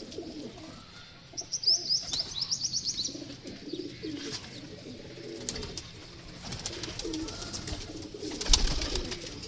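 Pigeons cooing continuously, with a quick run of high chirps about a second and a half in and a brief louder clatter near the end.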